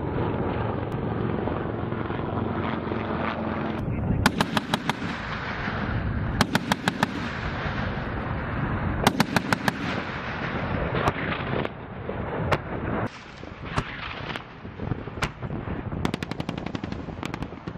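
AH-1Z Viper attack helicopter running with a steady rotor and turbine hum. Over it come three short bursts of rapid fire, about ten shots a second, from its M197 20 mm three-barrel rotary cannon. Single bangs follow, then another rapid run of shots near the end.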